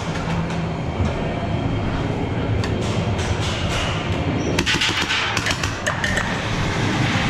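Gel blasters firing in quick bursts of sharp ticks, with a dense run of shots about five seconds in, over steady background music.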